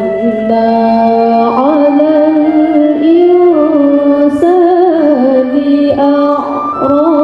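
A girl's voice reciting the Qur'an in the melodic tilawah style into a handheld microphone: long held notes with wavering ornamental turns, and brief breaks between phrases.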